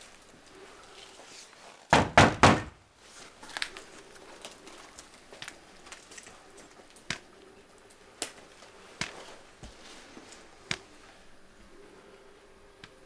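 Four loud, quick knocks on a door in rapid succession, then scattered light taps and clicks over a faint steady hum.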